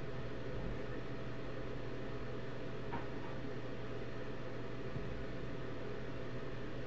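Steady background hum and hiss of room tone, with a faint click about three seconds in.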